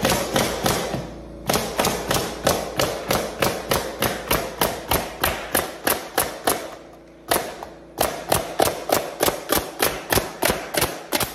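Pneumatic nailer firing shot after shot, about three a second, as it drives nails to fasten carpet tack strip to a plywood subfloor. There are two short breaks in the run.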